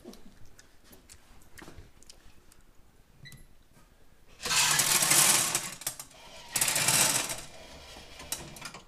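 Two bursts of rattling shelled corn kernels being poured, about four and a half seconds in and again about two seconds later, the second shorter, as a sample is loaded into a grain moisture tester.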